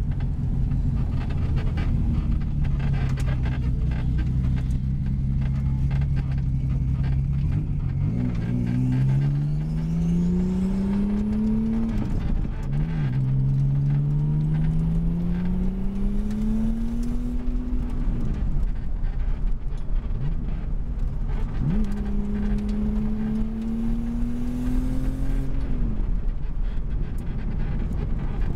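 1983 Porsche 911 Turbo's 3.3-litre single-turbo flat-six, heard from inside the car's stripped cabin while driving. The engine runs steadily for several seconds. Then, about eight seconds in, it pulls hard three times, each pull rising in pitch and broken off by a gear change or a lift off the throttle.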